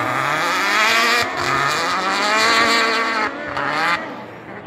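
Racing buggy engine running hard at high revs. The pitch climbs, drops about a second in and again past three seconds, then the sound fades away near the end.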